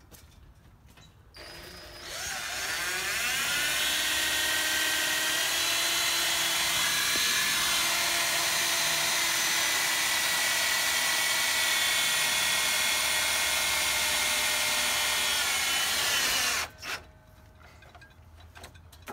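Cordless drill driving a self-tapping screw into a metal exhaust pipe. The motor whine spins up about two seconds in, runs steadily for about fourteen seconds, then cuts off suddenly.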